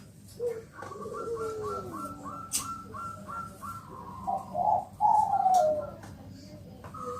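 Zebra dove (Bangkok perkutut) cooing: a quick run of short, evenly repeated notes at about three a second, then a few longer coos that fall in pitch.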